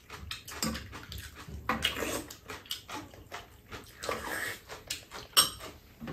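Eating at a table: spoons and chopsticks clicking against bowls in short, irregular clinks, with chewing and mouth sounds between them.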